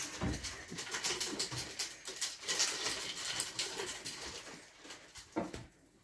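Ferrets playing on a rug and a fleece blanket: a quick patter and scrabbling of small paws with rustling fabric as the blanket is swept over them.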